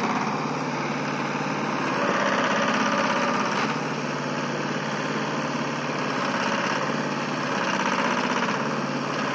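Mahindra Jivo 225 DI mini tractor's two-cylinder diesel engine running under heavy load as it pulls a fully loaded sugarcane trolley whose tyres have sunk into the field. The engine note swells and eases twice.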